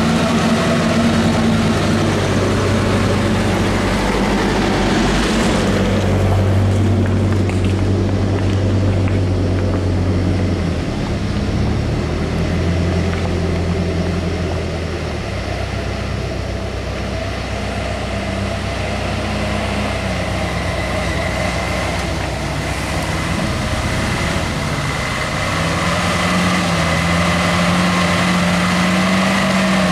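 Small diesel trucks loaded with oil palm fruit bunches labour through deep mud. Their engines run steadily under load, and the pitch steps up and down several times as the drivers throttle and shift.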